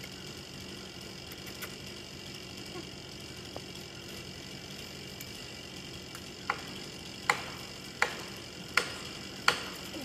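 Evenly paced sharp blows, about one every three-quarters of a second, starting about six and a half seconds in: a felling wedge being hammered into the cut of a large oak. Under them runs a steady low hum.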